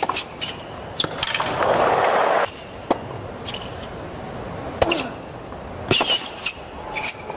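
Tennis racket strokes during a hard-court rally: sharp single ball strikes a second or so apart, each with a short ring. A burst of crowd noise comes about a second in and cuts off abruptly about two and a half seconds in.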